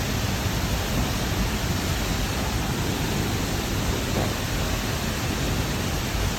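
Steady rushing of a large waterfall heard close up: a loud, even wash of noise with a strong low rumble.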